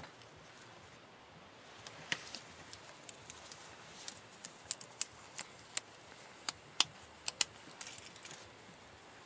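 Irregular sharp metal clicks from a stainless steel watch bracelet and its folding clasp being handled, opened and closed.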